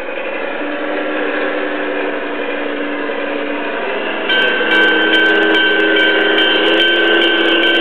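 LGB garden-railway diesel locomotive's sound module playing a running diesel engine, together with the model running on its rails. The engine note steps up in pitch, and about four seconds in it grows louder as a steady high whine and light clicking join.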